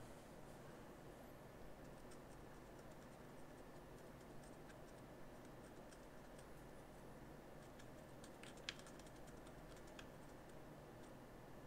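Near silence: room tone with a few faint, small clicks, the clearest a little after eight and a half seconds.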